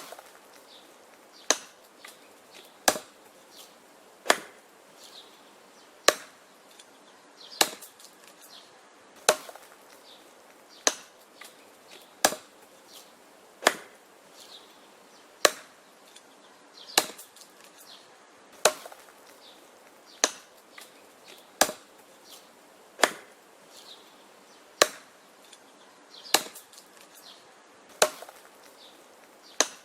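Axe chopping wood in a steady rhythm: sharp, cracking chops about every one and a half seconds.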